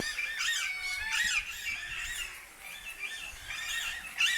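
Many birds calling over one another in an aviary: a dense chatter of short, repeated squawks and chirps, with one sharper, louder squawk near the end.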